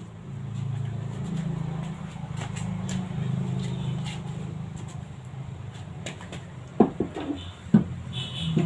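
A car wheel and tyre being handled and fitted onto a raised van's hub: two sharp knocks in the second half as it is lifted onto the hub, over a low steady hum.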